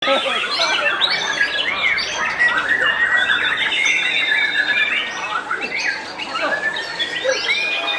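White-rumped shamas (murai batu) singing, a dense run of overlapping whistled phrases, rising and falling notes and rapid trills without a break.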